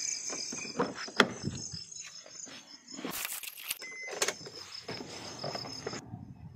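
Clicks and knocks of hands working a car's dashboard controls, with a short rushing noise about three seconds in, over a steady high whine that stops near the end.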